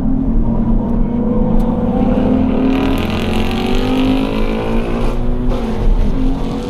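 Scion FR-S's 2.0-litre flat-four engine pulling hard under acceleration, its pitch rising steadily, then an upshift about five seconds in, after which it climbs again.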